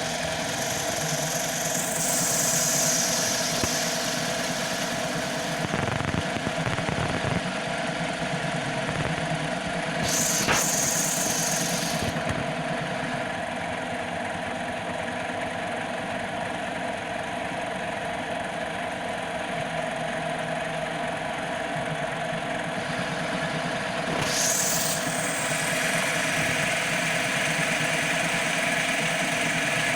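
CNC mini lathe running a radius-turning program: steady spindle motor and drive hum with several steady tones, and three short spells of higher hiss as the tool cuts.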